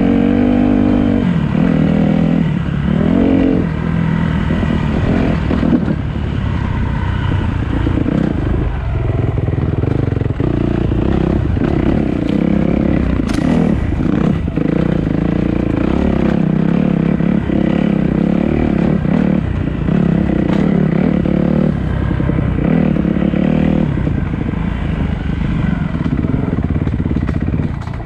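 Dirt bike engine running under load on a rough trail, its pitch rising and falling repeatedly with the throttle. Scattered knocks and clatter come from the bike, with one sharp click about 13 seconds in.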